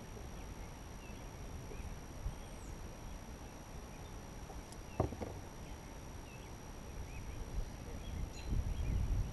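Low steady rumble of wind and water on an outdoor microphone, with faint scattered chirps, a single sharp click about five seconds in, and a few low thumps near the end.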